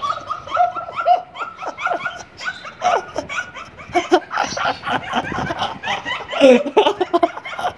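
A young woman laughing hard in quick, high-pitched bursts that repeat.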